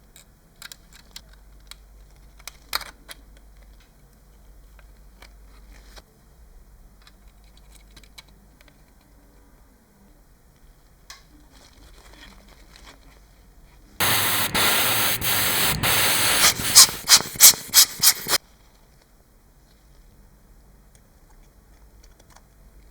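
Compressed air hissing in one long blast of about two and a half seconds, then a quick run of about seven short blasts, cut off suddenly; faint tapping and handling noises come before it.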